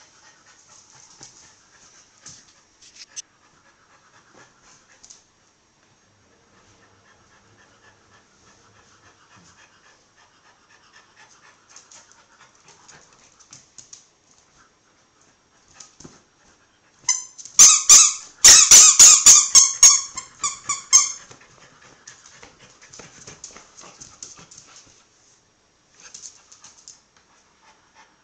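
American cocker spaniel playing with a ball in a fabric dog bed on a tile floor: mostly faint sounds of her moving about, then about 17 seconds in a loud run of about four seconds of rapid, high-pitched sounds and sharp knocks.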